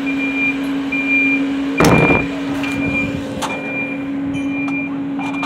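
Vehicle reversing alarm beeping about once a second over a steady engine hum, with a loud clatter about two seconds in.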